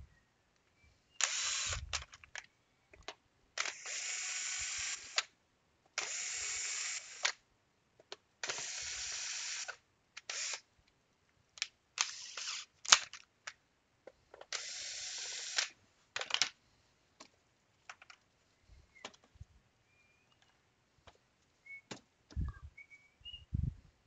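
Cordless electric screwdriver running in several short runs of about a second each, backing screws out of a plastic tablet case, with light clicks between the runs. Near the end there are scattered clicks and two soft thumps as the tablet is handled.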